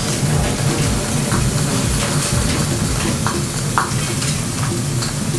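Steady frying sizzle in a kitchen, with a few light knocks of drained boiled potato chunks tipped from a strainer into a stainless steel saucepan.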